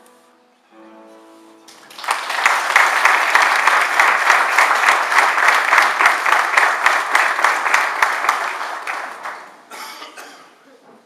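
A few soft guitar notes, then an audience clapping for about seven seconds, starting about two seconds in and dying away near the end.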